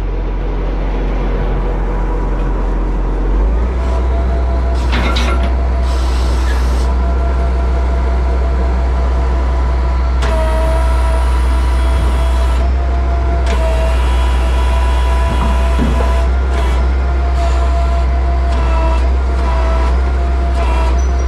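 Crane truck engine running loud and steady, stepping up in speed a few seconds in, with a steady hydraulic whine as the crane's hydraulics work. Short bursts of hiss come and go over it.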